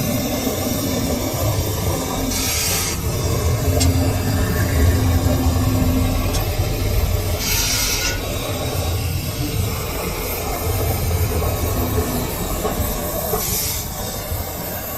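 Metal lathe running steadily with a low rumble and hum, with three short hissing bursts about five seconds apart.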